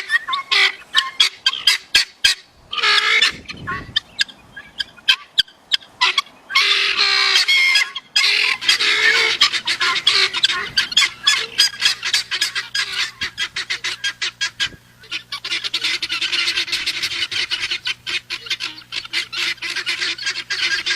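Guineafowl calling: harsh, rapidly repeated cackling notes, scattered at first and then, from about eight seconds in, several birds overlapping in a dense, continuous chatter. A steady low hum starts underneath at about the same point.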